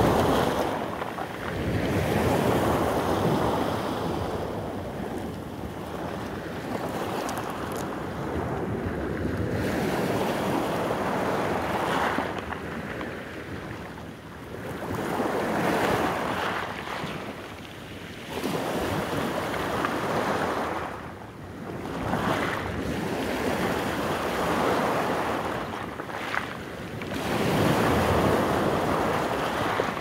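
Small sea waves breaking on a pebble beach and washing over the stones, the surf swelling and falling away every few seconds.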